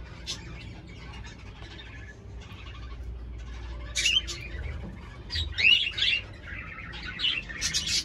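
Cockatiels chirping and calling. The calls are sparse at first, louder from about halfway, and come thick and fast near the end.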